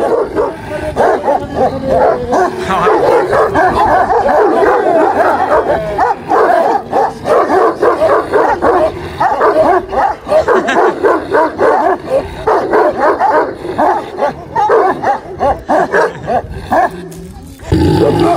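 Several large shepherd dogs barking over and over, densely, with only brief gaps.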